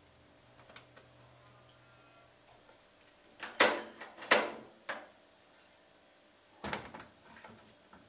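Gas hob burner being lit: two loud sharp clicks of the igniter about half a second apart as the knob is turned. About three seconds later, a knock as a frying pan is set on the burner grate.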